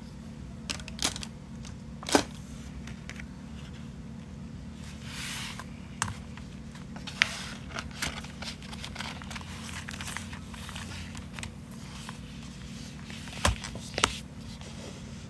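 Paper being handled: rustling and crinkling with a few sharp taps and clicks scattered through, over a steady low hum.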